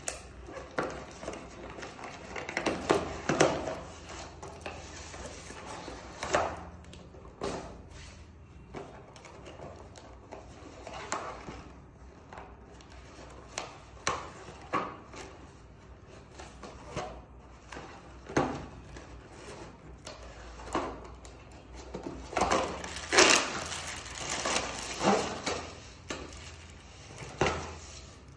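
Cardboard packaging being handled: irregular scrapes, rustles and knocks as a box is slid out of its sleeve and opened, with plastic-bagged metal parts lifted out near the end.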